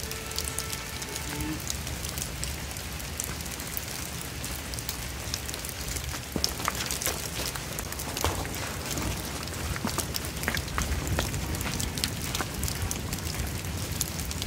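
Rain falling steadily, with many sharp raindrop ticks close by.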